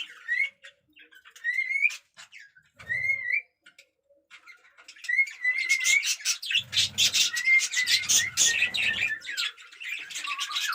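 Budgerigars chirping: a few separate rising chirps at first, then a dense chatter of many birds from about halfway through.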